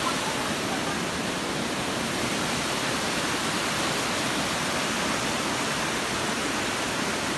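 Steady rush of a rocky mountain stream, water tumbling over boulders in small cascades.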